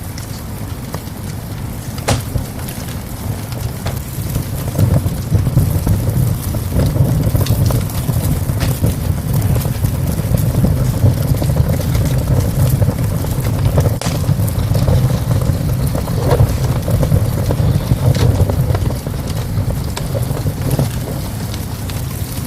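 Wood fire burning in a small stove, crackling with scattered sharp pops over a steady low rumble.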